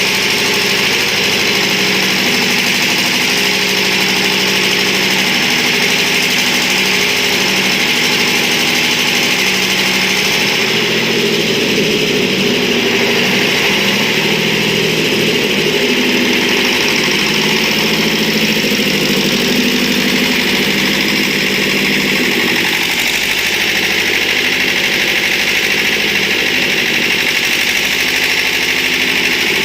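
Diesel engine of a 200-amp welding generator running steadily, with an even hiss over the engine note.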